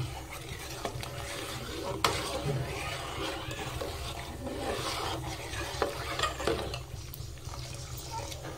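Cashews frying in a pan on a low flame, stirred with a spoon that scrapes along the pan, with a light sizzle and a few sharp taps of the spoon against the pan.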